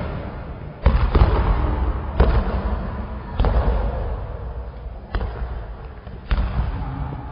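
Hip-hop backing track intro: heavy booming hits, one every one to two seconds, each with a long echoing fade, over a steady deep bass.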